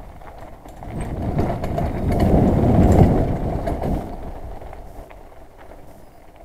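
Riding noise of a mountain bike on a dirt forest trail: a rough rumble of tyres and wind on the moving microphone, with a few short rattles. It swells about a second in, is loudest around the middle, then eases off.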